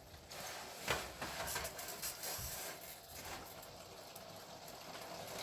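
Faint bubbling of a sauce boiling in a pot on the stove, with small pops throughout and a light knock about a second in.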